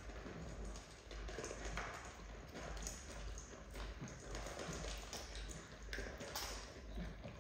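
Three French bulldog puppies eating dry kibble from a stainless steel bowl: irregular crunching and quick clinks and taps of kibble and muzzles against the metal bowl.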